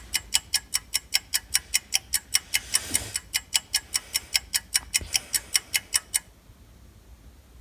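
Rapid, regular ticking, about five ticks a second, which stops abruptly about six seconds in, leaving only faint hiss.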